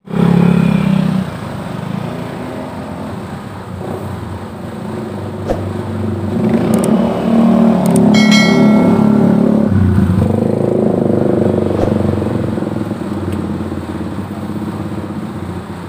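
Street traffic, motorcycle and other vehicle engines running steadily and growing louder from about six seconds in, with a brief high squeal about eight seconds in.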